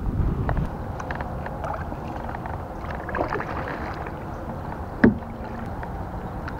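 Handling noises from fishing from a plastic kayak: small clicks and rattles of the rod and spinning reel and light knocks on the hull, with one sharp knock about five seconds in.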